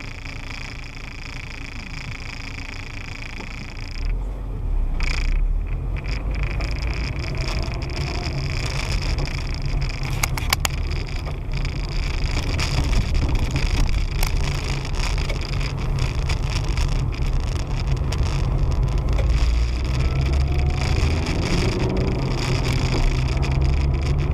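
Car's own engine and tyre noise heard from inside the cabin through a dashcam microphone, a low steady rumble that grows louder about four seconds in as the car pulls away and drives on.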